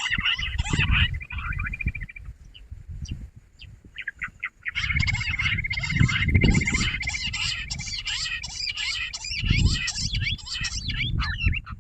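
Jungle bush quail calling in a chattering chorus of rapid chirping notes over a steady high pulsed trill. It breaks off after about two seconds and starts again a couple of seconds later, with low rumbling noise underneath.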